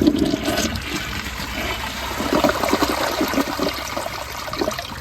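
Glacier Bay toilet flushing: a rush of water starts suddenly, is loudest around the middle, and eases off toward the end.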